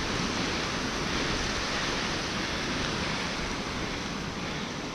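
Steady rushing noise of sea surf and wind on the microphone, with no distinct calls or knocks.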